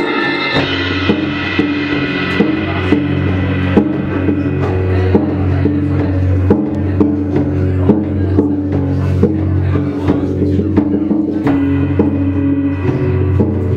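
Live acoustic band playing an instrumental intro: acoustic guitars strum chords over steady low notes, while a drum kit played with felt mallets keeps a soft, even beat.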